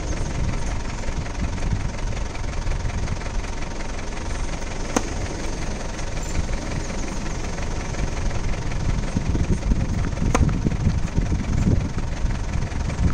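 Two sharp pops of a tennis racket striking the ball, about five seconds apart, over a constant low rumble of wind on the microphone.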